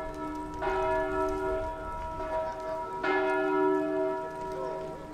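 A church bell tolling slowly, struck twice, about half a second in and again around three seconds in, each stroke ringing on and fading until the next.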